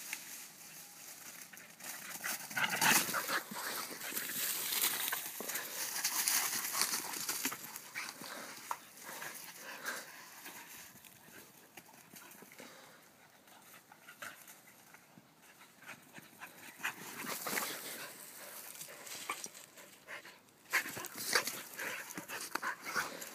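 Two dogs, an Australian Kelpie mix and an Australian Cattle Dog mix, playing rough together. Their dog noises come mixed with uneven bursts of scuffling. The play is loudest about three to seven seconds in and again near the end, with a quieter stretch in between.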